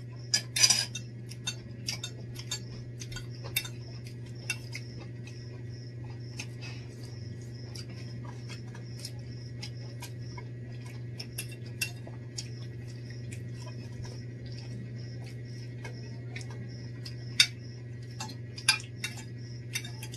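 Spoons and forks clinking and scraping on plates in short, scattered clicks, a few louder ones near the end. Underneath, a steady low hum and a faint, regular high ticking.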